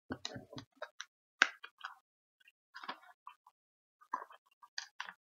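Plastic snack wrapper crinkling as it is handled: an uneven string of short crackles and clicks, the sharpest about a second and a half in.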